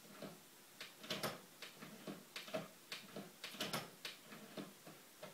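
Faint, irregular small knocks and clicks as a Blu-ray player is handled by hand on a TV cabinet shelf, about a dozen over a few seconds.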